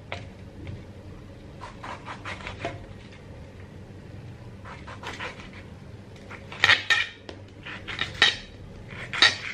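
Knife cutting a tomato and clicking against a metal plate in scattered taps, with a denser run of louder taps in the second half as the tomato is diced on the plate.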